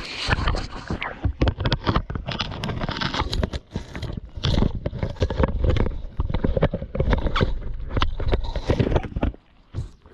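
A lion mouthing and chewing on the camera, right against the microphone: a dense run of knocks, clicks and scrapes as teeth, tongue and fur rub and bump the camera body.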